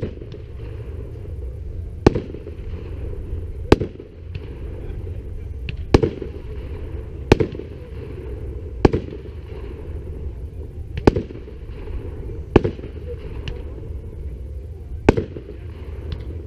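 Aerial firework shells bursting one after another: about nine sharp bangs, a second and a half to two seconds apart, over a steady low background rumble.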